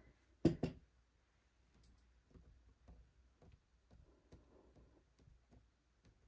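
Two quick, sharp knocks about half a second in, then light scattered taps and clicks and a soft rustle: hand tools and the glass being handled and set down on a work table.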